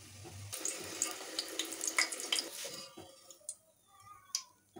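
Potatoes frying in hot oil: a dense sizzle full of crackles for about two seconds, which then drops away to faint pops as the fried potatoes are lifted out on a wire skimmer.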